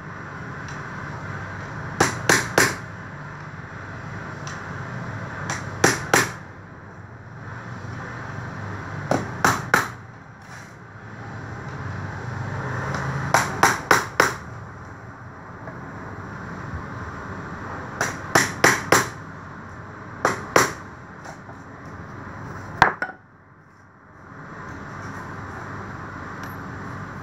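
Hand hammer tapping in short runs of three or four quick blows, repeated every few seconds, with a single blow near the end.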